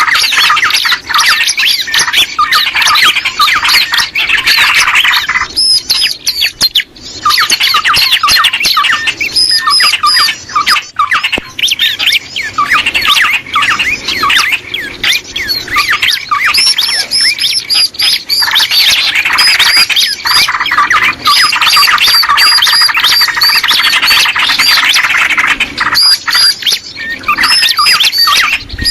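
Loud, dense chattering of small birds: rapid high chirps and squawks overlapping almost without pause, with a brief lull about seven seconds in. This is a bird-lure (pikat) call meant to draw small birds in.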